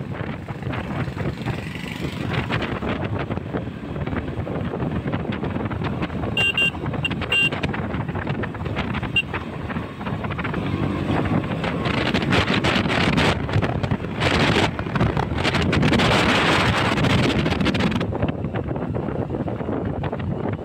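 Wind buffeting the microphone on a moving KTM Duke 200, with the motorcycle's single-cylinder engine running underneath. A few short high beeps come about six to seven seconds in, and the wind noise grows louder in the second half.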